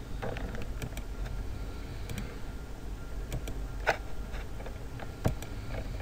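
A few scattered clicks at a computer's mouse and keyboard, the clearest two about four and five seconds in, over a steady background hum and hiss.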